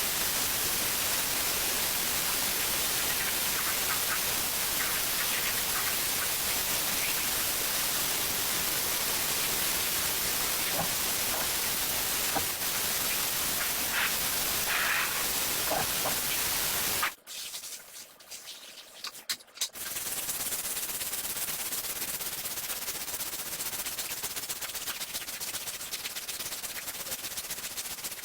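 Steady hiss of a sprayer on the rug, broken by a few seconds of quieter clicks and handling noise. The spray then starts again, a little quieter.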